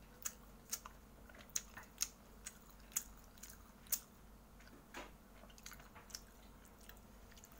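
A person chewing fried martabak mie bihun close to the microphone: irregular crisp clicks and crunches, about ten of them, sharper and more frequent in the first half.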